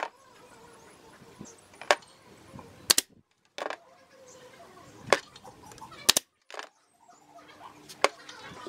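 Sharp wooden clicks and knocks as thin slats and their frame are handled and fitted into place, about six of them, irregularly spaced, over faint handling rustle.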